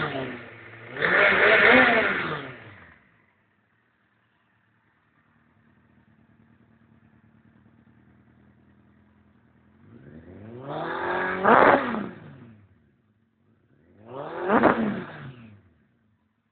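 Suzuki GSX-R1100W's inline-four engine revved in short blips: one dying away at the start, then one about a second in, one around ten to twelve seconds in, and one near fifteen seconds, each climbing and falling back. Between revs it drops to a faint idle.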